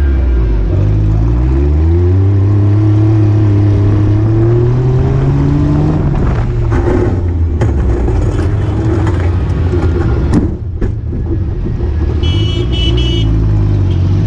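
Daihatsu Mira rollover car's small engine revving up as the car speeds across dirt, then the car rolls over: knocks and thuds of the body and roll cage hitting the ground, mixed with engine and wind noise, before the engine runs on steadily once the car is back on its wheels.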